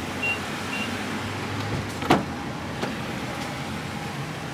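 Three short high beeps from a Nissan Murano's chime in the first second, then a car-door thunk about two seconds in and a fainter knock soon after, over steady outdoor background noise.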